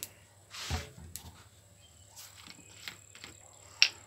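Paint containers and a bottle of acrylic thinner being handled while paint is mixed: a short rushing noise about half a second in, then several light clicks and taps, the sharpest near the end, over a faint steady hum.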